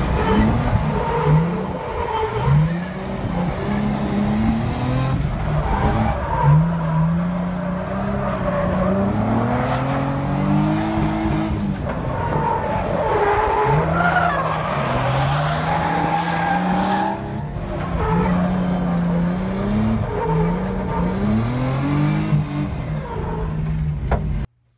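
Drift car's engine heard from inside the cabin on a drift run, revving up and dropping back again and again as the throttle is worked, with the tyres skidding on the pavement. The sound cuts off abruptly near the end.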